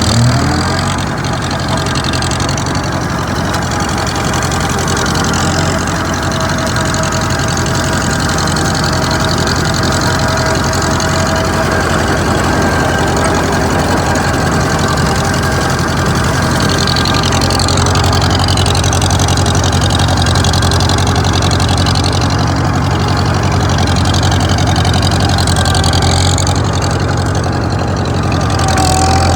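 Farmall H tractor's four-cylinder engine running steadily while it pulls a brush cutter through hay, with a brief rise in revs right at the start.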